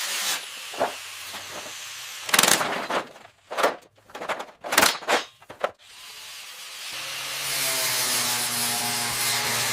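Hand tool work: several short rasping strokes, like scraping or brushing metal. About seven seconds in, a motorized power tool starts and runs steadily with a low hum.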